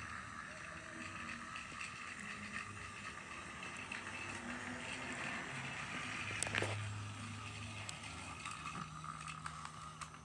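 Battery-powered TrackMaster toy engine running along plastic track: a steady, quiet motor whir with the wheels clicking over the track, and one louder click about six and a half seconds in.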